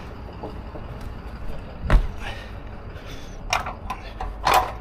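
A vehicle engine runs with a steady low rumble. One sharp, loud knock comes about two seconds in, and a quick run of metallic knocks and rattles follows near the end.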